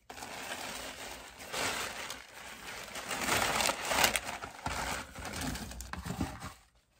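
Shipping packaging crinkling and rustling as it is handled by hand, in irregular louder and softer patches, dying away shortly before the end.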